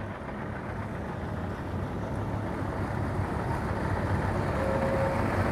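Small outboard motor running steadily and growing gradually louder as the boat draws near.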